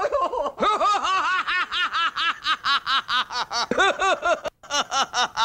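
A cartoon character's high-pitched laughter, a fast run of "ha-ha-ha" at about five a second. It breaks off briefly about four and a half seconds in, then starts again.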